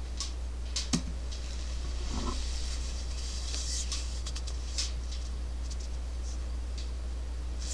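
Scattered computer mouse clicks, the sharpest pair about a second in and another near five seconds, over a steady low hum.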